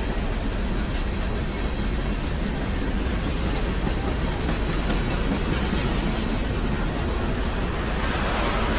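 Freight train rolling by, a steady rumble and hiss of wheels on rail with no horn sounding; the hiss swells briefly near the end.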